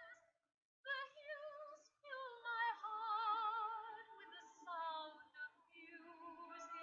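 A woman singing a melody with strong vibrato, in short phrases, with a brief break in the sound about half a second in.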